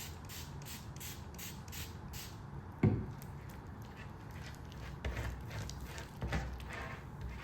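Slime being worked with added activator: a quick run of short, soft, sticky hissing strokes, about five a second, for the first two seconds, then a single thump about three seconds in, followed by quieter handling.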